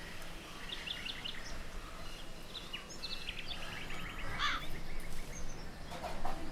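Several small birds chirping and twittering in short calls and quick trills, over a steady low background rumble. One louder call comes about four and a half seconds in.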